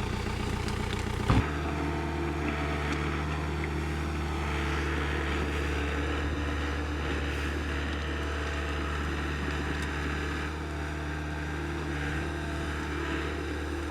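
Hitachi EX60 excavator's diesel engine idling steadily. A short knock comes about a second and a half in, after which the engine's hum settles to a slightly different note.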